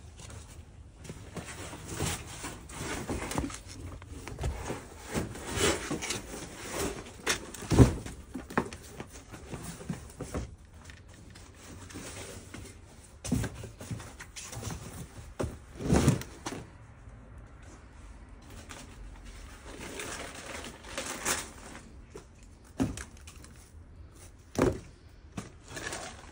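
Cardboard boxes being rummaged through and opened by hand: cardboard rustling and scraping, with scattered irregular knocks and thumps, the loudest about eight and sixteen seconds in.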